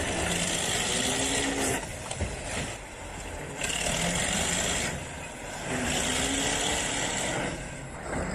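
A heavy vehicle's engine running, its pitch rising and falling several times as it is revved and eased off.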